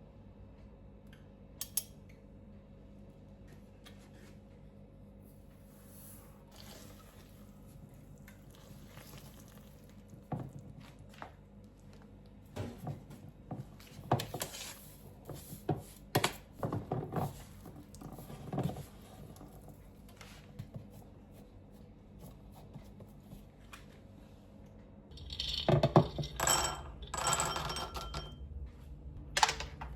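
Dishes and cutlery clinking and clattering in scattered knocks, busiest about halfway through and again near the end, when a low steady hum starts.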